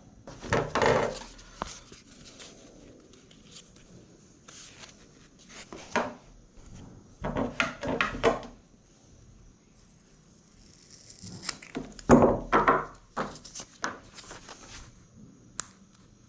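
Scattered handling noises: knocks and rubbing in several short bursts with quieter stretches between, from the kayak and mat pieces being moved about.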